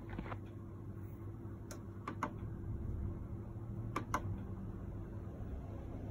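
Light clicks of a Dynacord mixer's push-button PARAMETER knob and menu buttons being pressed: several single clicks, including two quick pairs about two and four seconds in. A steady low hum runs underneath.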